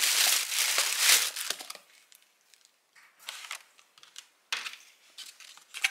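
Crinkling and rustling of something being handled: a dense stretch in the first second and a half, then a few short, separate rustles.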